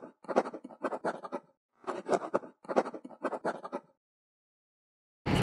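Pen scratching on paper in quick drawing strokes, about six scratchy strokes in two bursts, then it stops. Right at the very end a sudden, steady, louder rushing noise cuts in.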